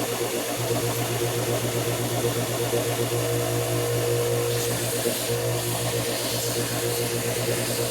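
A shop machine's motor running with a steady hum, with a brief rise of hiss about five seconds in.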